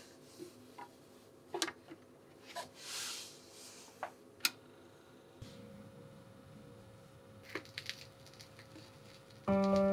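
A vinyl record being handled onto a record player: a series of light clicks and knocks as the disc is set down and the tonearm is moved. After about five and a half seconds comes the faint hiss of the stylus in the groove, with a couple of crackles. Piano music starts near the end.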